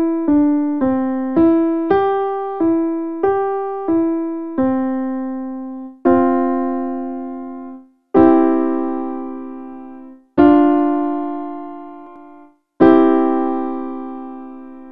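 Electronic keyboard with a piano sound, played one hand at a time in the treble: a slow run of single notes, about two a second, through a C-major five-finger pattern. It closes with a single note, a two-note chord and three held cadence chords, each left to ring and fade before the next.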